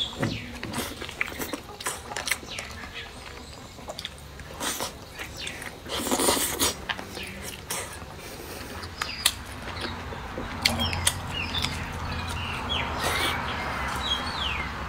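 Close-miked eating of yellow-braised pork trotters: wet chewing, lip smacks and sucking on the soft gelatinous skin, with many short clicks from the mouth. A few bird chirps sound in the background in the second half.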